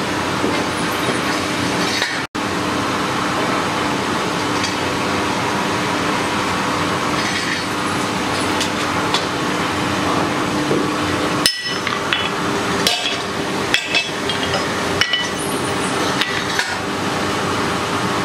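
Blacksmith's small hammer tapping lightly on a small hot steel figurine piece on the anvil: a handful of sharp, irregularly spaced strikes in the second half. A steady fan-like hum of the forge blower runs underneath.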